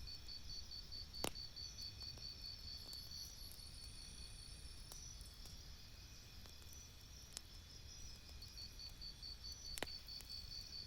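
Campfire crackling faintly, with a few sharp pops, the loudest about a second in and near the end. Under it runs a steady, rapid, high-pitched chirping like crickets.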